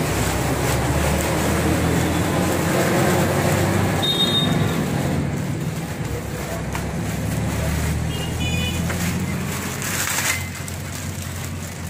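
A motor vehicle engine running with a steady low rumble, under the crinkle of plastic wrapping being handled on a boxed amplifier. A sharper rustle comes about ten seconds in, and the rumble is a little quieter after it.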